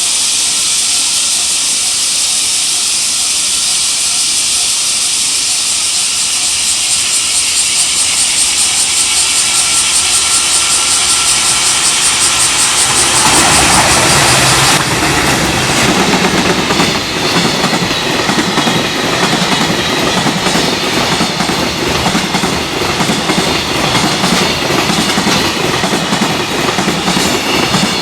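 A steady high hiss, then about 13 seconds in a freight train arrives and rushes past at speed. Its wheels beat out a rapid clatter over the rail joints.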